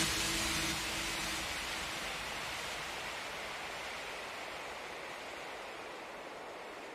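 The last of the music dies away within the first second or so, leaving a steady rushing hiss that slowly fades out.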